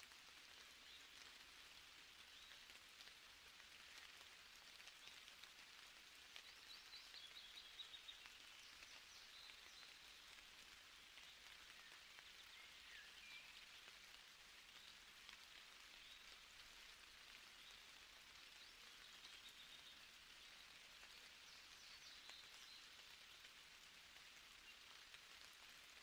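Faint forest ambience: a steady high hiss with a few brief bird chirps, about a third of the way in, near the middle and again near the end.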